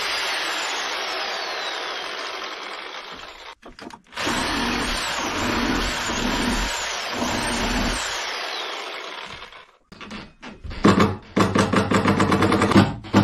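Cordless reciprocating saw cutting through wooden cabin framing. It runs in stretches with a brief stop after a few seconds, then ends in a fast, loud chattering rhythm of blade strokes.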